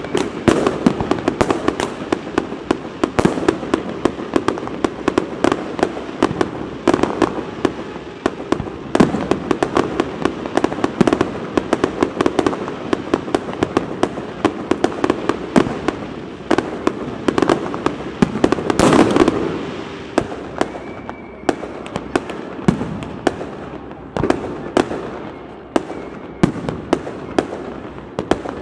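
Aerial fireworks display: a steady run of sharp shell bursts and bangs, a couple every second, over a continuous crackle, with a denser, louder cluster about two-thirds of the way through.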